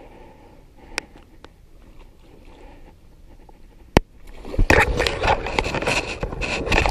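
A sharp click about four seconds in, then loud, dense rustling and scraping as reed and grass stems brush against the camera.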